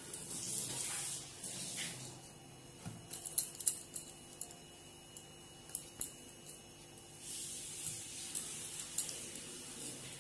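Quiet handling sounds of maida dough being pinched off and rolled into balls by hand: soft rubbing, with a few light clicks and taps in between.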